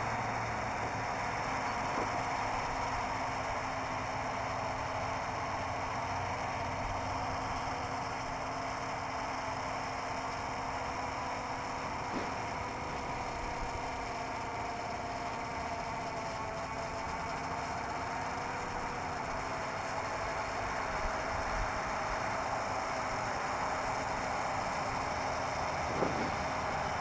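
Distant hum of a hexacopter's electric motors and propellers, its pitch drifting slowly up and down as the throttle changes, over a steady wash of wind and outdoor noise.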